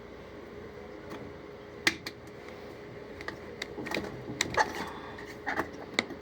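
Cover panel of an automatic washing machine being fitted back in place during reassembly: irregular light clicks and taps, several close together in the second half, over a faint steady hum.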